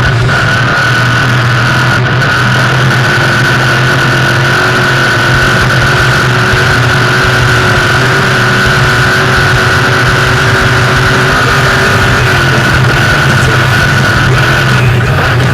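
Off-road race vehicle's engine running steadily at sustained speed, loud and even throughout.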